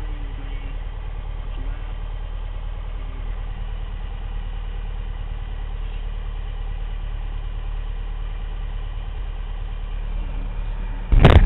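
Piper Cherokee's single propeller engine running steadily at low power, a low drone. About eleven seconds in, a short, loud crackling burst cuts across it.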